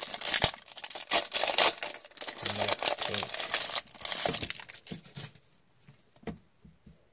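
A foil hockey card pack being torn open and its wrapper crinkled by gloved hands, a dense crackling noise for about five seconds. It then gives way to a few soft clicks as the cards are handled.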